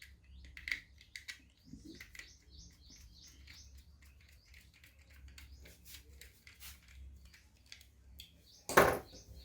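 Screwdriver work on an Echo Dot 3rd Gen's plastic case: faint clicks and scrapes as the base screws are driven back in, among short high chirps. There is one loud knock near the end.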